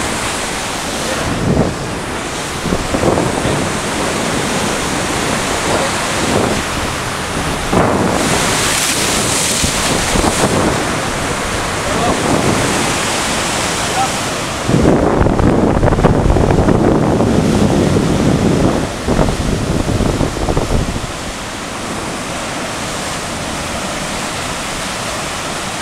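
Heavy sea surf breaking and foaming over rocks, with wind on the microphone. The surf swells and falls in surges, loudest for a few seconds around the middle and quieter near the end.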